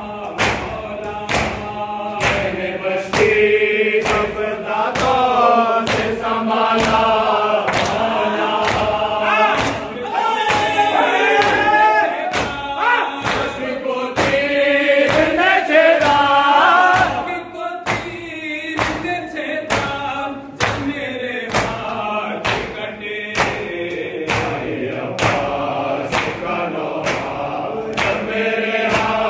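A group of men chanting a nauha, a Shia lament, in unison. Under it runs a steady beat of hands striking chests (matam), about one and a half strokes a second. The chanting is loudest through the first half and drops back about two-thirds of the way in.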